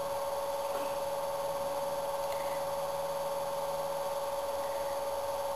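Steady electrical hum with a constant mid-pitched whine of two tones, unchanging throughout.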